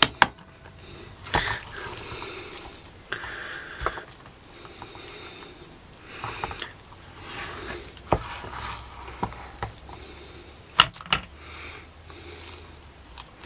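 A spoon scooping and scraping mashed potato and mince out of a metal Trangia camping pot onto a metal plate, with soft squelches and several sharp clicks of the spoon against the metal, two of them close together near the end.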